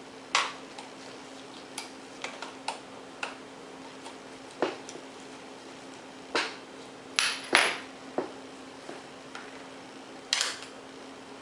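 Screwdriver and small screws clicking and tapping against a laptop's plastic screen bezel while the bezel screws are put back in: about a dozen short, irregular clicks, a few of them louder.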